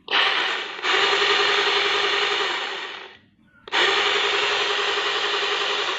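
Battery-powered 6-inch mini chainsaw running in two bursts of about three seconds each, with a short pause between them. The pitch steps up just under a second into the first burst.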